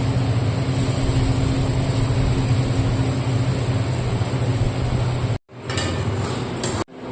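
Steady humming and hissing noise from a running machine, broken off abruptly twice near the end.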